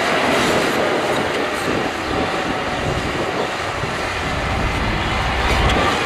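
Shantui crawler bulldozer at work: its diesel engine running under load and its steel tracks clattering as it pushes dirt, with a heavier low rumble in the last second or two.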